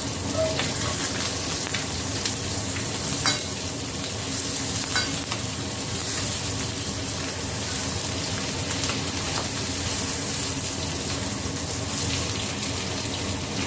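Small whole fish frying in hot oil in a frying pan, a steady sizzle. A couple of sharp clicks about three and five seconds in.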